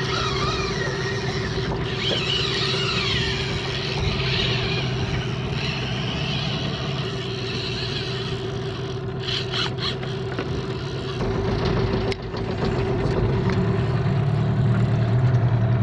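Yamaha outboard motor running steadily with a constant hum as the boat moves, getting louder about two-thirds of the way through.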